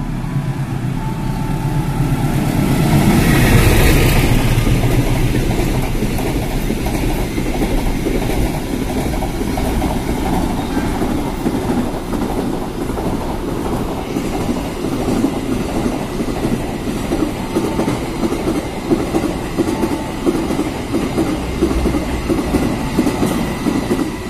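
A container freight train runs through at speed. Its diesel locomotive is loudest as it passes about four seconds in, with a falling pitch. Then a long string of flat wagons clatters over the rail joints in a steady rhythm.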